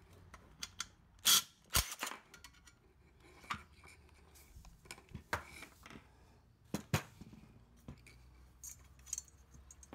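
Scattered metallic clicks, clinks and a few sharper knocks of hand work on a small engine: a socket driver on the shroud bolts, loose bolts and the sheet-metal shroud being handled.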